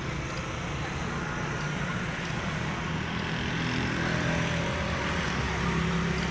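Road traffic with a motor vehicle engine running, slowly growing louder.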